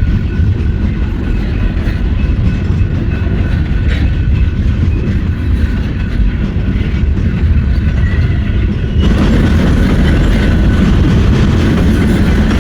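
Norfolk Southern freight train rolling past, a heavy, steady rumble of wheels on rail with faint high ringing tones over it. The sound steps up, louder and brighter, about nine seconds in.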